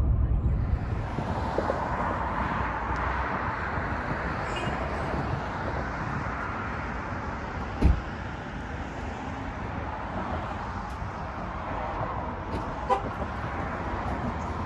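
Steady road traffic noise from passing cars. There is one sharp, loud thump about eight seconds in and a smaller knock near the end.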